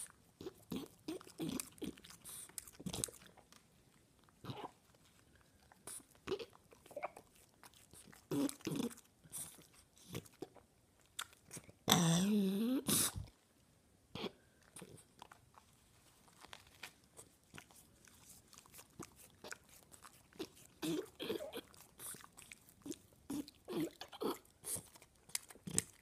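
French bulldog chewing and tearing at roses, making repeated short, irregular crunches and chewing sounds. About halfway through there is a brief, louder voice-like sound.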